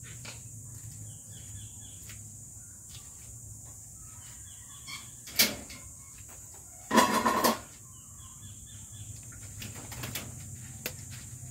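Wire dog cage being handled: a sharp metallic click about five seconds in, then a short, loud rattle about seven seconds in. Small birds chirp faintly in the background throughout.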